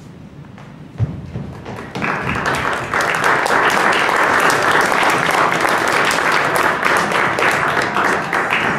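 A theatre audience applauding: a single thump about a second in, then clapping that swells from about two seconds in and holds steady.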